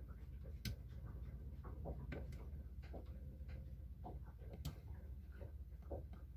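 Faint low hum with scattered light clicks and taps, and two sharper clicks, one about a second in and one about two-thirds of the way through.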